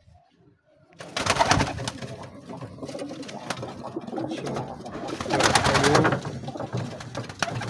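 Domestic pigeons cooing, most clearly a little over halfway through, over flapping and rustling that starts about a second in.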